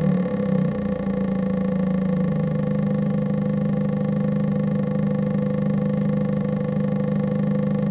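Homemade electronic imitation of a Subaru EJ20 boxer engine's equal-length exhaust note. The pitch shifts and settles over the first two seconds, then holds as a steady drone.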